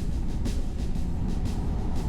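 Car driving at highway speed: a steady low rumble of road and wind noise, with short hissy swishes coming every few tenths of a second.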